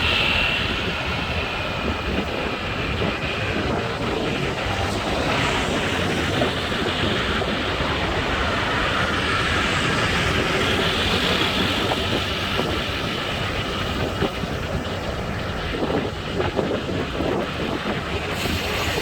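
Steady rush of wind over the microphone and road noise from a road bike riding at about 33 km/h.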